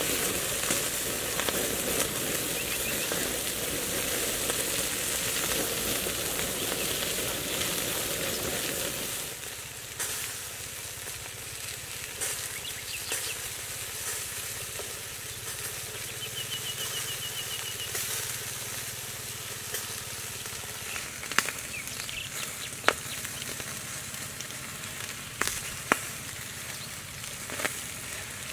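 Fish sizzling on clay plates over a wood fire: a steady hiss that drops somewhat about nine seconds in. Near the end, a few sharp clicks and taps as the fish are turned and handled.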